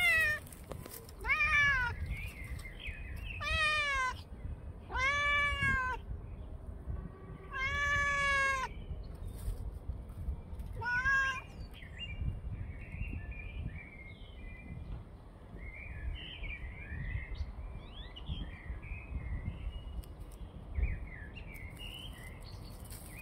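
Calico cat howling: six loud, long meows over about the first eleven seconds, each rising then falling in pitch.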